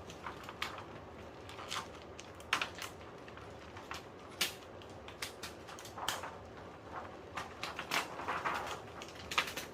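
Thin plastic sheets and panel parts of an LCD TV being handled and pulled out, making irregular clicks, taps and rustles.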